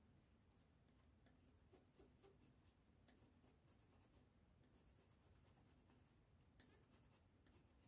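Faint scratching of a pencil on paper as a line is drawn, in several short strokes.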